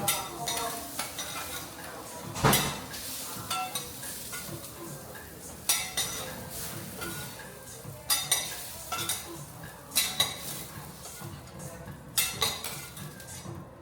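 Metal spatulas clanking and scraping on a teppanyaki griddle while food sizzles, with sharp clanks every couple of seconds, the loudest about two and a half seconds in.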